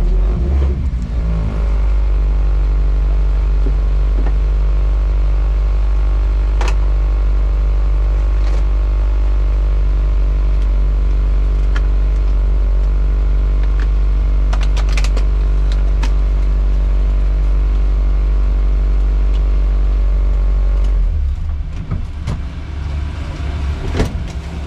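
Lada Niva driving with its engine running at a steady speed, with occasional sharp knocks and rattles. About 21 seconds in, the engine note drops and turns rougher and more uneven.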